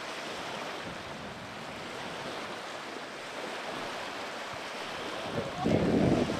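Steady wind noise with waves lapping on the shore, and a stronger gust buffeting the microphone near the end.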